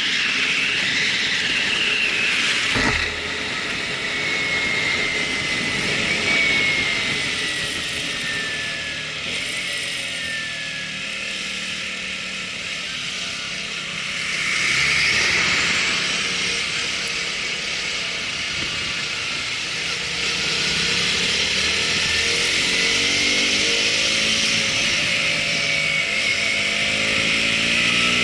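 Harsh, steady rushing noise with a thin whine sliding slowly in pitch, as recorded by a Sony HDR-AZ1 action camera's microphone; the owner is unsure whether this terrible noise comes from a factory defect or is simply how this model records.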